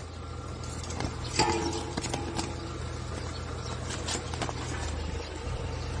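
A steady low hum under scattered scratching and clicking, with a short squeak about a second and a half in.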